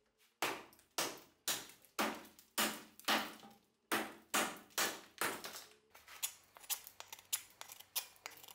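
Restored carpenter's axe chopping into a log, one sharp strike about every half second. From about six seconds in come lighter, quicker knocks as the axe cuts on a workbench.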